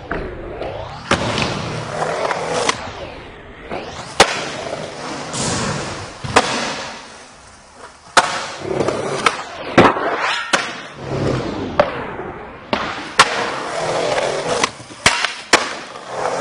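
Skateboard wheels rolling on smooth concrete, swelling and fading as the board passes, with sharp clacks and slaps of the board popping and landing about eight or nine times.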